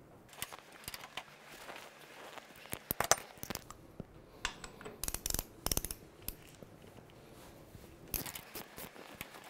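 Hand ratchet clicking in short bursts as the nuts on a motorcycle's top triple clamp are unscrewed, mixed with sharp metallic clinks of a socket being handled.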